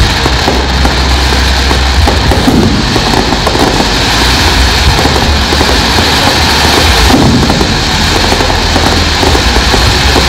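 Fireworks display: a dense, continuous crackling of bursting shells and sparks with no clear single bangs, over a steady low rumble.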